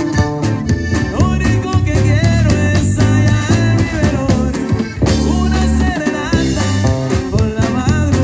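Norteño-style band playing live: button accordion over electric guitar, bass guitar and drum kit, with a steady bass line.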